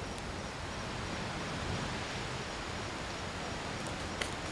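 Steady rushing of a creek flowing past the camp, with one sharp snap about four seconds in.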